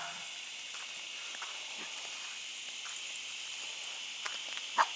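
Quiet outdoor background with a steady high hiss; a small dog gives one short yip near the end.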